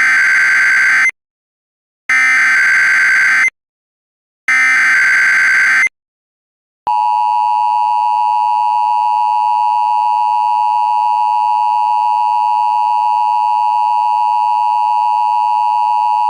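Emergency Alert System activation tones. First come three loud, evenly spaced bursts of warbling data tones, the SAME header bursts, each about a second and a half long with short silences between. About seven seconds in, the steady two-tone EAS attention signal starts and holds, heralding an evacuation order.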